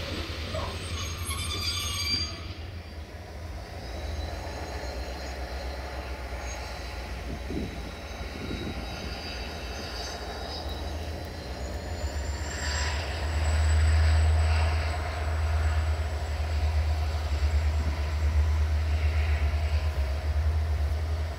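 Diesel-electric locomotive engine, a CFR Class 65 'Jimmy' with a General Motors engine, running with a steady low rumble as the locomotive moves slowly. The engine note swells about twelve seconds in and stays louder near the end, with a faint high-pitched whine alongside.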